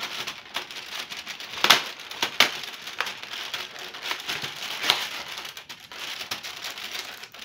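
Crinkling and rustling of cardboard and packaging as an advent calendar window is torn open and the treat inside is handled. A few sharp snaps stand out, the loudest about two seconds in.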